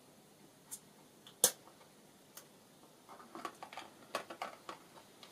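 Faint clicks and taps from handling a hand pressure pump and carburettor during a pop-off pressure test: one sharp click about a second and a half in, then a quick run of small clicks and rattles in the second half.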